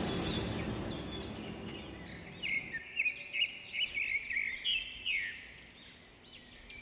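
A noisy sound fading out, then a bird chirping in a quick run of short, high, rising-and-falling notes, about three a second, pausing and starting again near the end.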